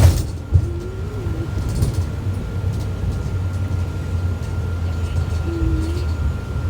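Interior of a 2012 IC BE school bus under way: its MaxxForce 7 diesel engine drones steadily, with a thin steady whine over it. A couple of hard thumps from the bus come near the start.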